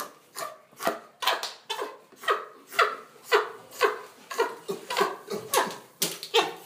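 A chimpanzee giving food grunts while eating: a steady run of short, rough calls, about two a second, each dropping in pitch, the typical sound of a chimp enjoying its food.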